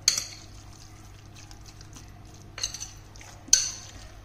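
A spoon mixing a wet minced-pork filling in a bowl, clinking against the bowl three times. The loudest clink comes about three and a half seconds in.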